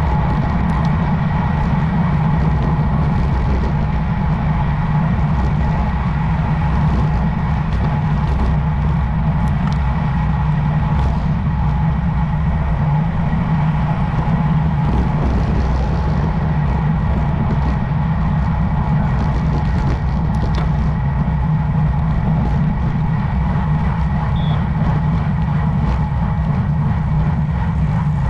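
Steady wind and road rumble on a camera carried by a road cyclist at riding speed, with a constant faint hum.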